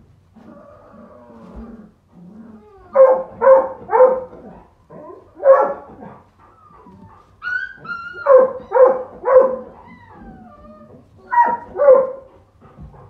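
Puppies barking in short clusters of two or three sharp barks, with high, downward-gliding whines between them.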